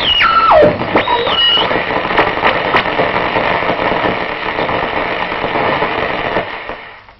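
Shortwave radio receiver static as the tuning dial is turned: a whistle drops in steps from high to low in the first second, a second short whistle follows, then a steady crackling hiss that fades out near the end.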